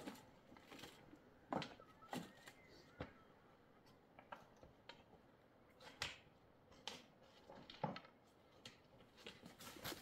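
Faint, irregular footsteps crunching and clicking on loose stones and gravel, a dozen or so uneven steps.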